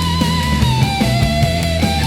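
Instrumental psychedelic rock: a sustained lead melody over bass and drums, holding one note, dropping lower about halfway through, and climbing back up near the end.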